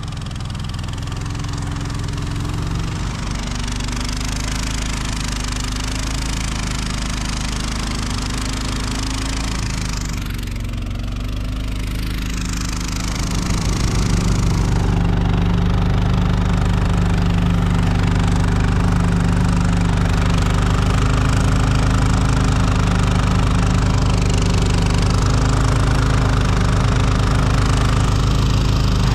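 Small gasoline engine of a tracked motorized sled running steadily under load as it pulls through deep snow. It gets louder from about halfway through.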